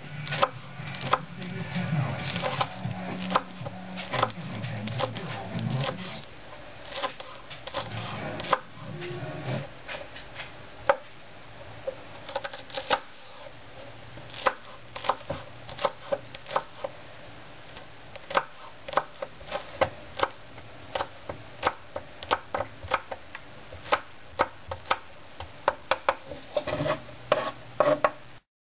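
Kitchen utensils clinking and knocking against cookware in short sharp strikes, irregular at about one or two a second and coming faster near the end.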